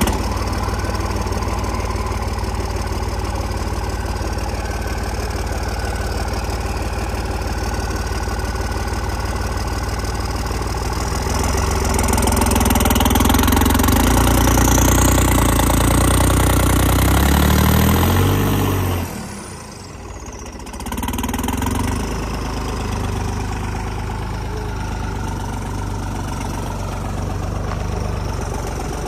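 Diesel engine of a heavy tractor-type machine running at idle. About eleven seconds in it is revved up, rising in pitch, then drops back sharply at about nineteen seconds and settles to a steady idle again.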